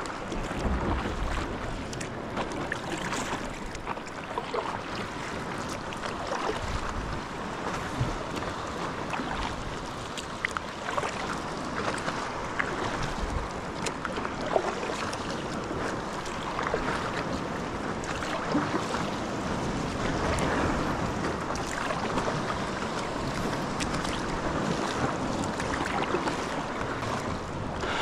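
Sea waves washing steadily, with wind gusting on the microphone now and then.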